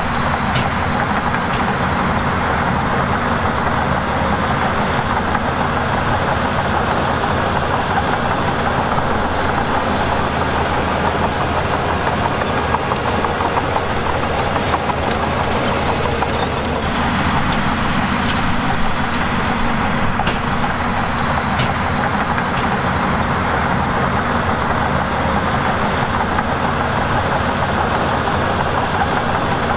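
Heavy diesel earthmoving machinery running steadily, an engine with a low, even drone under a dense mechanical clatter, with a few faint clicks.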